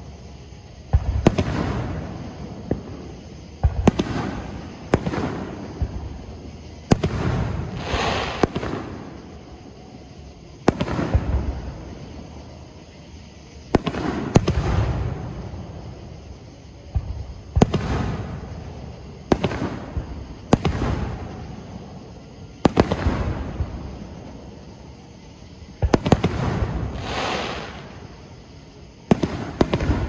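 Aerial fireworks shells bursting one after another, a sharp bang every one to three seconds, each followed by a fading rumble; a few bursts trail off in a longer crackle.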